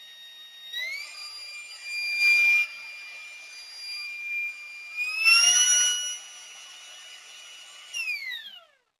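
20V cordless router's motor running with a high-pitched whine. Its pitch steps up twice, about a second in and about five seconds in, as the speed is raised, with two short louder, noisier passages. Near the end it is switched off and the whine falls away to a stop.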